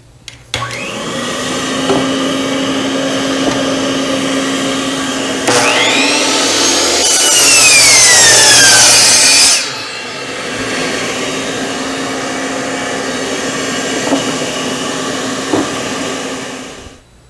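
A vacuum cleaner runs steadily, its hose hooked to the saw's dust port, and shuts off near the end. About five seconds in, a DeWalt 10-inch miter saw starts and plunges through its new wooden fence for about four seconds, its high whine falling in pitch as the blade cuts, then stops.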